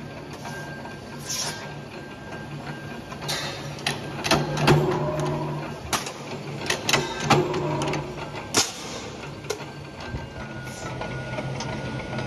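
Metal-working press running with a steady low hum, broken by irregular sharp metallic clacks and knocks as steel disc blanks are handled and cut under its head.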